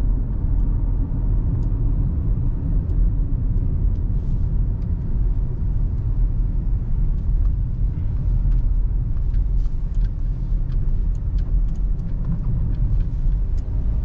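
Car driving along a road, heard from inside the cabin: a steady low rumble of tyres and engine, with a few faint ticks.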